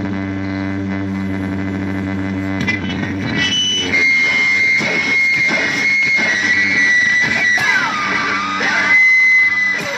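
Experimental noise music: a steady low droning chord for the first two and a half seconds or so, then a scraping, crackling texture under a high held whine that bends down in pitch and back up shortly before the end.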